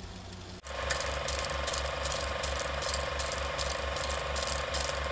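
Film projector running: a rapid, even mechanical clatter with a low thump on every beat, starting abruptly about half a second in.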